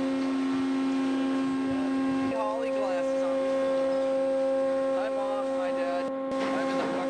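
Steady droning hum of a fishing boat's machinery, one pitched drone with its overtones, shifting slightly in pitch about two seconds in.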